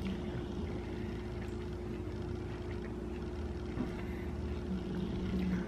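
Quiet room with a steady low background hum. A short closed-mouth "mm" hum comes near the end.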